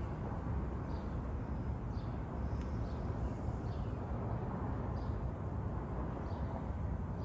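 Steady low outdoor rumble with faint, short bird chirps repeating about once a second.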